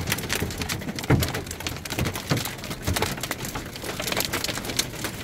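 Hailstones pelting the metal roof and bodywork of a camper van, heard from inside the cab: a dense, irregular patter of sharp knocks over a steady rain hiss, with a few louder thuds from bigger hailstones.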